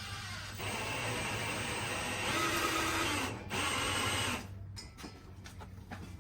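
Power drill with a 1/4 inch bit running steadily while boring pilot holes for lag bolts. It stops briefly about three and a half seconds in, runs again for about a second, then stops, leaving a few light clicks of handling.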